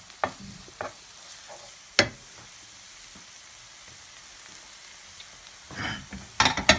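Scrambled egg frying in a nonstick pan with a steady faint sizzle, while a wooden spatula scrapes and taps the pan: a sharp tap about two seconds in and a quick run of scrapes and knocks near the end.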